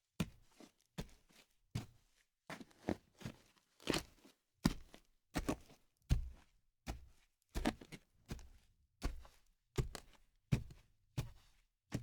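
Footsteps walking at a moderate pace, about two to three steps a second, each a short sharp tap, stopping near the end.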